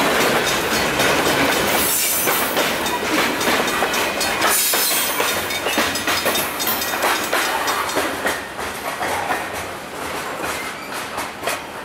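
Freight cars rolling through a grade crossing, their wheels clattering over the rails, fading in the second half as the last car clears and the train moves off. A railroad crossing bell rings throughout.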